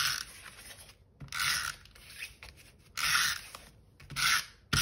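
Adhesive tape runner drawn across the back of a cardstock panel in four short strokes, its gears whirring with each pass.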